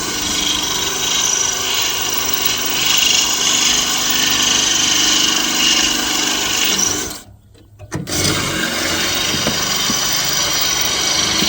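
Electric drill running under load as it drills out rivets in a bus body panel. It stops about seven seconds in and starts again about a second later.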